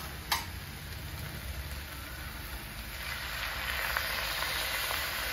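A little water poured into a hot kadhai of sautéed onions and capsicum, sizzling; the sizzle grows louder from about three seconds in. A short clink near the start, and a steady low rumble underneath.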